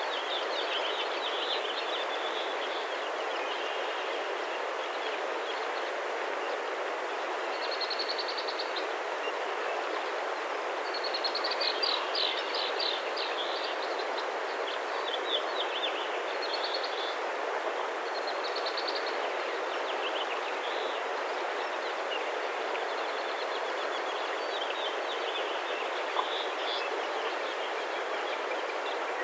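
Steady outdoor background rush with small birds singing short high trills now and then, the busiest burst of song about twelve seconds in.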